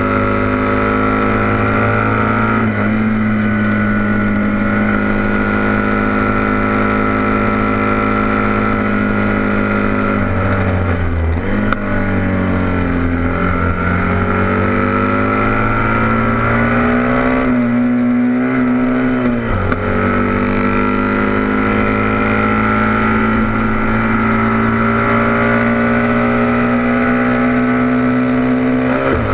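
Vintage heavyweight production racing motorcycle's engine at racing speed, heard from on board. Its note falls sharply about eleven seconds in as the bike slows for a corner, then climbs slowly as it drives out. It drops abruptly with an upshift near twenty seconds and then holds high on the straight.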